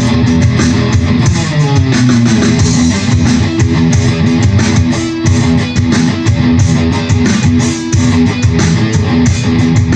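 Guitar music played live at a sound check: strummed guitar over a bass line with a steady beat.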